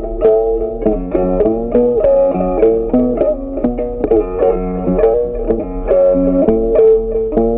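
Background music played on a plucked guitar: a steady run of picked notes forming a light melody.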